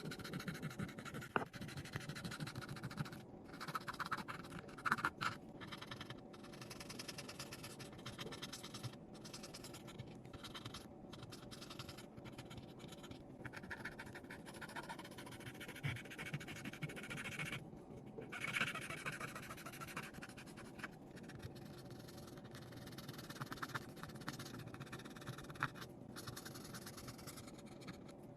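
Small repair tools scratching and scraping against phone parts in irregular strokes, broken by many brief gaps.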